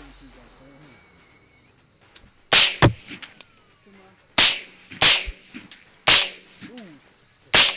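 Six rifle shots from a semi-automatic rifle, each a sharp crack: a quick pair about two and a half seconds in, then four more spaced roughly a second apart.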